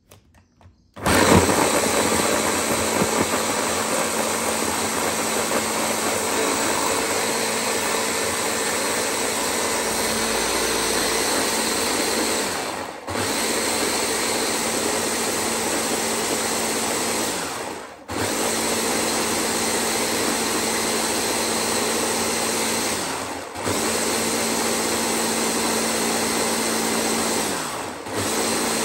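Countertop electric blender starting up about a second in and running steadily as it blends a liquid batter, its motor briefly slowing and picking up again four times.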